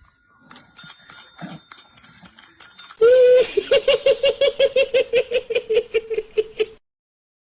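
A tabletop service bell dinged several times in quick succession, followed by a loud, rapid, high-pitched laugh of about four to five 'ha's a second that cuts off suddenly.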